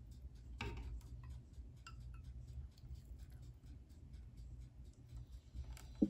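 Faint handling sounds as batter is poured from a blender jar into a metal muffin tin: a few light clicks and taps, the clearest about half a second in, over a low steady rumble.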